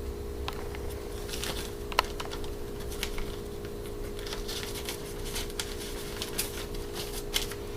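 Vinyl 45 records in plastic sleeves being handled: scattered light rustles, taps and clicks, over a steady low hum.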